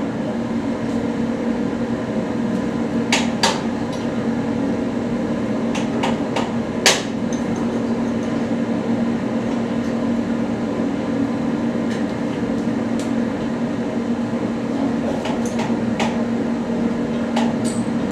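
A workshop machine runs with a steady hum, with sharp metal knocks now and then, the loudest about seven seconds in.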